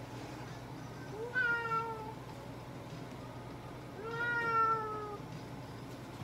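Long-haired domestic cat meowing twice, two drawn-out calls that sink slightly in pitch, the second longer than the first.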